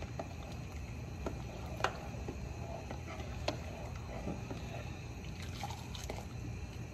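A pot of pickling brine at the boil, stirred with a plastic ladle: faint bubbling and sloshing with scattered light ticks. Near the end, liquid drips from the lifted ladle back into the pot.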